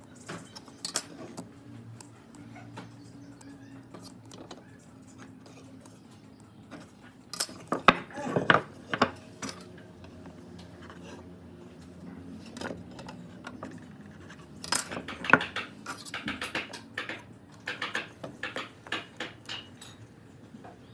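Irregular clicks, knocks and clinks of small hard objects being handled, in a cluster about a third of the way in and again through the last third, over a faint steady hum.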